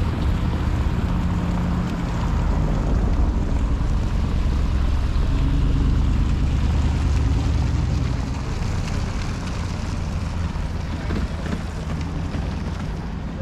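Loud low rumble of city traffic, with a steady engine-like drone and wind on the microphone, easing a little after about eight seconds.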